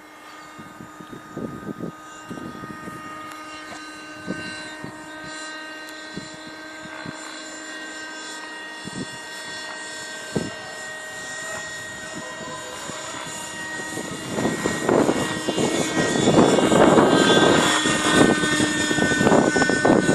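Nitro RC helicopter's small two-stroke glow engine and rotors running with a steady high whine. The sound swells much louder over the last several seconds, with heavy rushing, gusty noise on top.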